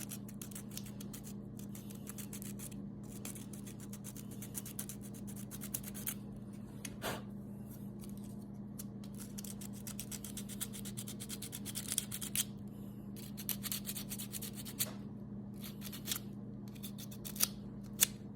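Coarse sandpaper rubbed in quick, uneven scratchy strokes over hardened JB Weld epoxy on a metal latch, smoothing down the repair. A steady low hum runs underneath.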